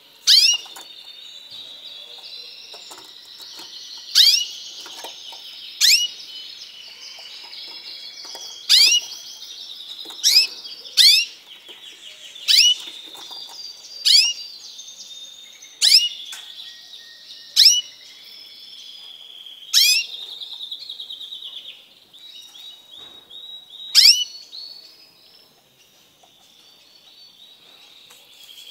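Red mosaic canary singing: a continuous rapid warbling song, broken about a dozen times by loud, sharp notes that sweep downward in pitch. The song thins out near the end.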